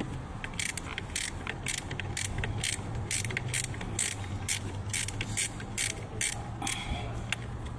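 Ratchet wrench being worked, clicking in a steady rhythm of about two to three clicks a second and stopping near the end, over a low steady hum.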